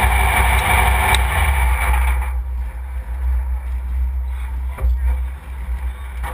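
Vehicle running, with a heavy low rumble of wind on the microphone. The broad higher noise drops away about two seconds in, leaving the low rumble.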